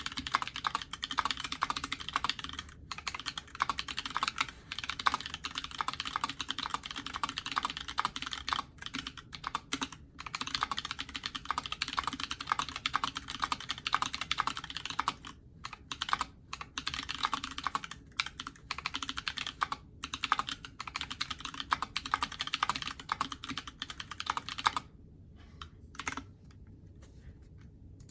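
Typing on an Alice-layout mechanical keyboard with Massdrop Holy Panda tactile switches lubed with 205g0, mounted on a carbon-fibre plate in a frosted acrylic case, with JTK keycaps. Fast, steady clacking of keystrokes with short pauses, thinning to a few single keystrokes near the end.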